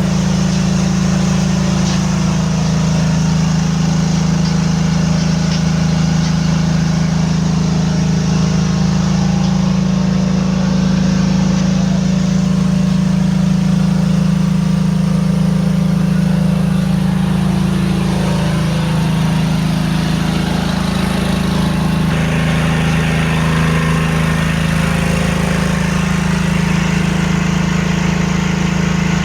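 Compressed-air equipment, a 20 HP air compressor with its air dryer, running steadily with a loud, constant low hum. The higher mechanical sound shifts slightly about two-thirds of the way through.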